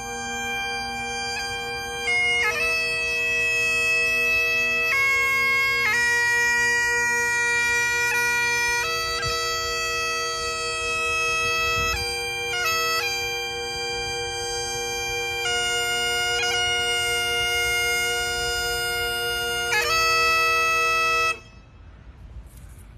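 Highland bagpipes playing a slow tune: steady drones under the chanter's held melody notes. The pipes cut off suddenly near the end.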